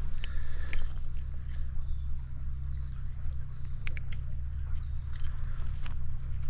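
Handling noise while a stuck hook is worked free of a trout: scattered sharp clicks and rustles over a steady low rumble.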